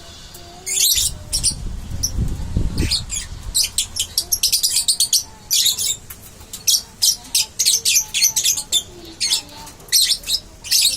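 Young lovebird chirping in quick strings of short, high-pitched calls, a baby practising the chattering 'ngeriwik' song. A low rumble runs under the calls from about one second to three seconds in.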